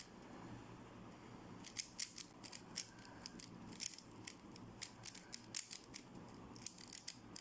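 3x3 speedcube turned quickly by hand: rapid, irregular plastic clicks of the layers snapping into place, several a second, starting after a quieter first second or so.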